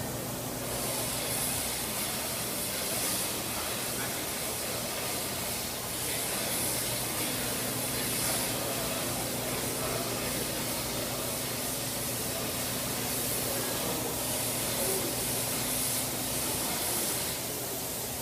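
Steady hissing spray of water from a water screen, swelling about a second in and easing off near the end, with a low steady hum underneath.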